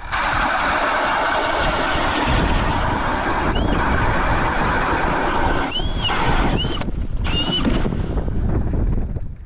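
Ice auger boring a hole through lake ice: a loud, steady noise with a few brief rising-and-falling whines, whose higher part stops about eight seconds in.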